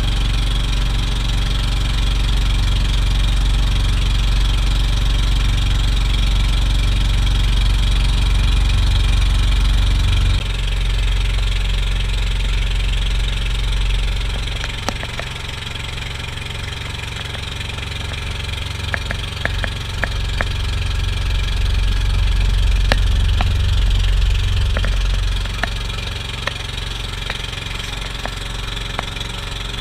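Boat engine running steadily at a low, even hum, easing down a little about ten seconds in and picking up again later on, with a few faint clicks over it.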